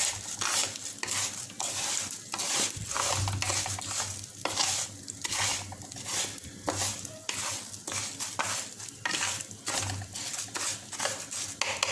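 Raw rice being stirred and toasted in hot oil with garlic in a pan: a steady sizzle with the scrape of stirring strokes about twice a second, as the grains start to brown.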